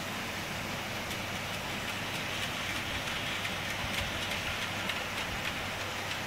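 Model EF15 electric locomotive hauling freight wagons along layout track: a steady hiss of running wheels and motor, with faint scattered clicks of the wheels over the rail.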